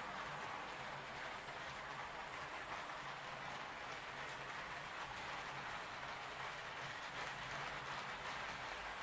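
HO-scale DCC model trains running on the layout: a steady whir of small motors and wheels rolling on the track, with no distinct clicks or changes.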